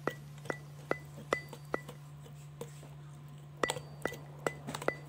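A utensil clinking against a mixing bowl in a steady rhythm, about two or three strikes a second, each ringing briefly at the same pitch, with a pause of about two seconds in the middle; a low hum runs underneath.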